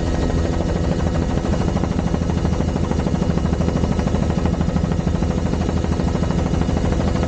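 Helicopter rotor and engine running steadily, a fast, even chop over a low hum, heard from inside the doors-off cabin.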